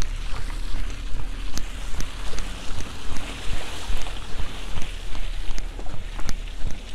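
Wind rumbling on the microphone over the wet hiss and slosh of a Jeep Compass's street tyres rolling through mud and slush, with scattered faint ticks.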